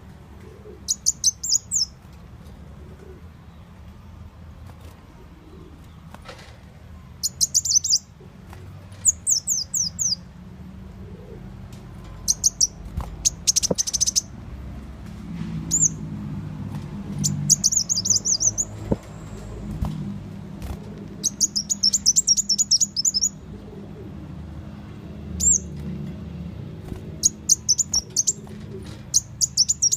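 Brown-throated sunbird (muncang, kolibri wulung) calling, as played for a bird lure: short clusters of rapid, high, sharp chirps about a second long, repeated every few seconds, over a steady low hum.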